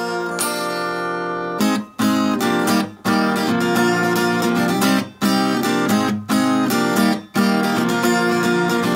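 Instrumental music on a plucked string instrument, with picked notes and chords. The sound drops out briefly five times.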